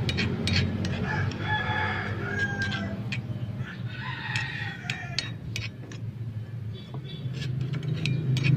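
A rooster crowing twice in the background, with small clicks and scrapes of a spoon stirring rice in a miniature metal pot over a steady low hum.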